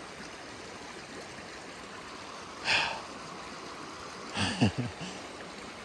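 Shallow mountain creek running over gravel and stones, a steady rush of water. A person's sharp breath cuts in about two and a half seconds in, and a brief falling vocal sound follows a little after four seconds.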